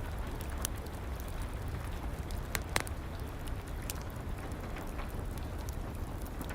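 Steady rain together with a crackling wood fire: a continuous rush of rain with scattered sharp pops and snaps from the fire, two of the loudest just before three seconds in.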